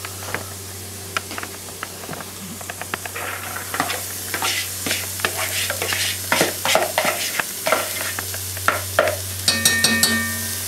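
Mushrooms and bacon sizzling in a cast-iron Dutch oven while diced carrots, onion and celery are scraped from a bowl into the pot with a spoon, giving many quick clicks and scrapes from about four seconds in.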